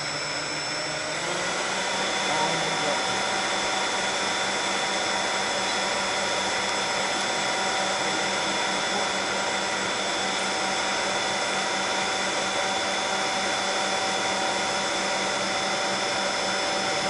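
The four 70 mm eleven-blade electric ducted fans of an RC Convair 880 airliner model running steadily: a high multi-toned whine over rushing air, stepping up a little about a second and a half in.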